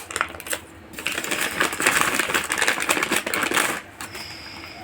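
Packaging being opened by hand: a dense run of crinkling, rustling and clicking from plastic and cardboard wrapping, which stops about four seconds in.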